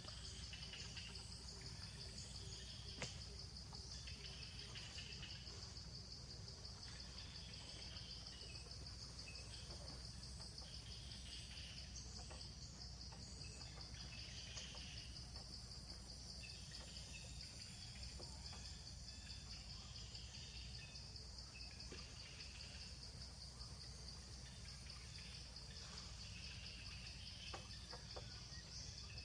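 Faint, steady high-pitched insect chorus, with shorter calls recurring every couple of seconds over a low background rumble.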